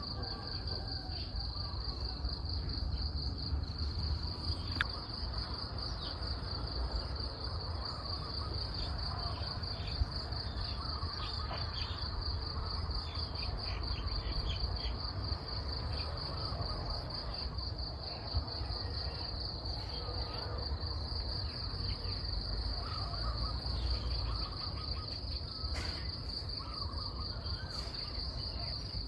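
Tropical forest ambience: a steady high-pitched insect trill, pulsing evenly, dominates, with scattered faint bird calls beneath it.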